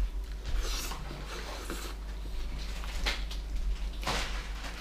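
Close-up eating noises: a man gnawing and chewing meat off a pork rib held in his hands, with a few short, hissy mouth sounds.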